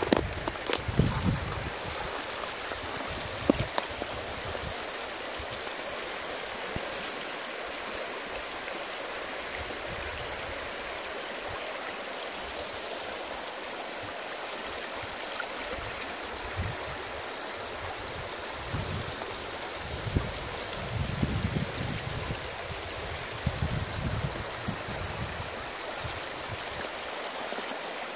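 Shallow, rocky stream flowing, a steady rush and babble of water over stones. A few low bumps stand out near the start and again about twenty seconds in.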